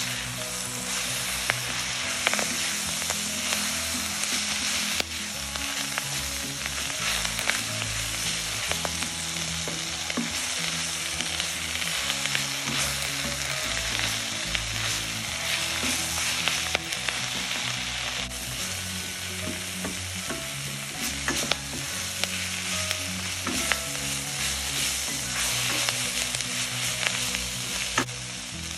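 Moringa leaves and onions sizzling in a steel wok while a wooden spatula stirs them, with small scrapes and clicks against the pan. Low background music plays underneath.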